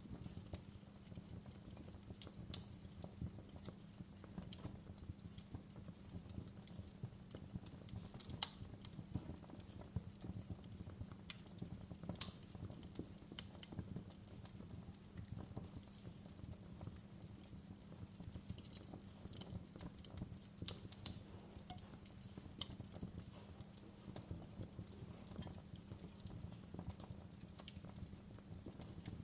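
Fire crackling in a fireplace: a dense run of small pops and snaps over a steady low drone, with a few sharper, louder snaps now and then.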